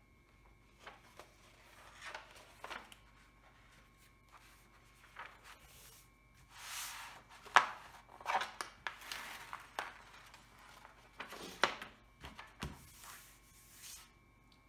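Paper handling: a large sheet of cover paper and a stiff diamond-painting canvas being lifted, slid and smoothed on a table, with irregular rustles and swishes. The loudest sound is a sharp crackle of the paper about seven and a half seconds in.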